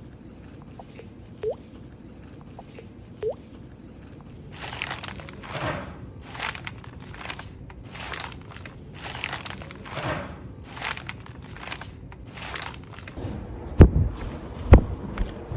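Foley sound effects: a few short rising blips, then a run of crunching, rustling strokes about one a second, then two heavy thuds near the end.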